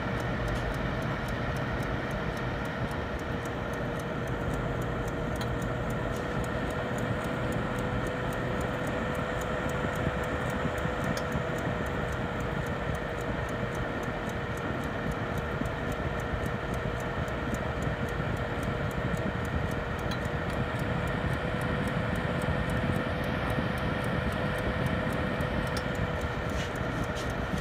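Sausages sizzling on foil with small scattered crackles, over the steady hum of a countertop cooker's fan holding one constant tone.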